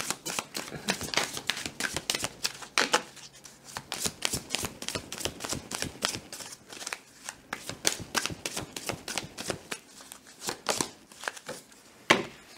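Deck of oracle cards being shuffled by hand: a rapid, continuous run of soft card-on-card flicks, with a single sharper card slap near the end.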